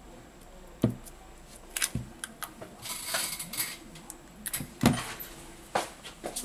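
A smartphone handled on a silicone repair mat: a few sharp knocks as it is moved, turned over and set down, with light clicking and rattling between. The loudest knock comes about five seconds in.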